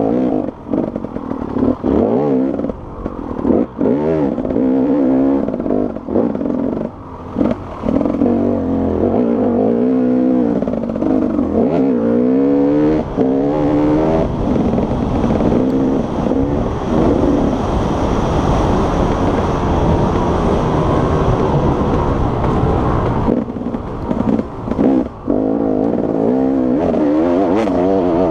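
Enduro dirt bike engine heard from on board, revving up and down with throttle chops and gear changes, then held at high revs for several seconds on a straight before backing off and pulling hard again near the end. Occasional knocks from the bike hitting bumps in the track.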